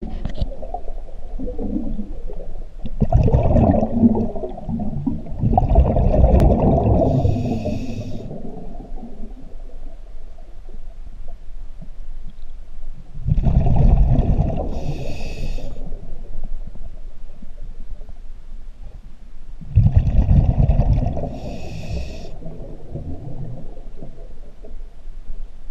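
Scuba diver breathing through a regulator underwater: three slow breaths, each a loud, low bubbling rumble followed by a short hiss, coming about every seven to ten seconds.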